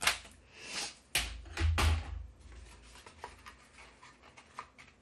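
Plastic paper trimmer and card stock being handled on a craft table: a sharp click, a short swish of paper sliding, then two heavy knocks with a low thud as the trimmer is set down, followed by light taps and faint paper rustle.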